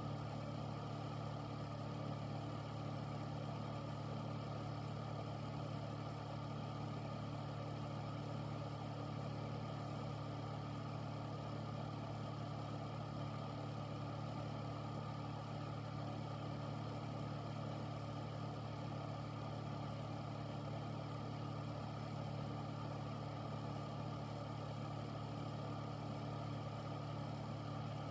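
Air filter fan running steadily: an even rush of air over a low hum with a few held tones, unchanging throughout.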